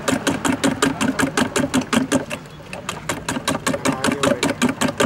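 Eggs being beaten fast in a steel bowl, the spoon clinking against the metal about six or seven times a second, with a short pause about halfway.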